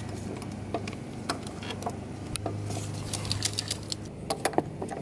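Metal ratchet strap buckle on a boat trailer clicking and clattering as it is worked open and the strap is released, with a quick run of about four clicks near the end.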